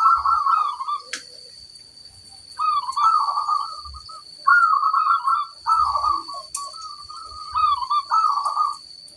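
Zebra doves (perkutut) cooing in a series of rolling, warbled phrases of about a second each, with short pauses between, while faint high chirps of smaller birds and a steady high-pitched tone run underneath.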